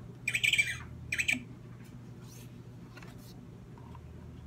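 Recorded penguin squawks played by the penguin button of a children's sound book, through its small built-in speaker: two short calls in the first second and a half, the second briefer.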